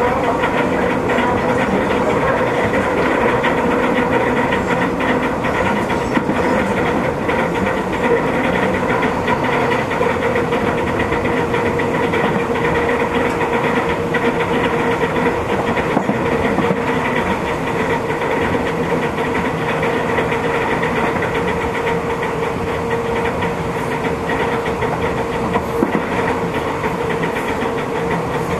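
Running noise heard inside a passenger car of an MTR East Rail line electric train travelling between stations: a steady whine over the rumble of wheels on rail, with a few single clicks from the track.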